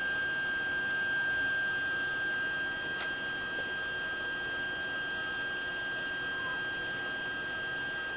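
A steady high-pitched electrical whine over a low hiss, unchanging throughout, with one faint click about three seconds in.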